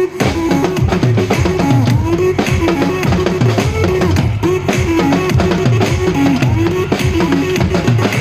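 Drum kit played in a percussion solo: a fast, dense run of drum strikes with bass drum underneath.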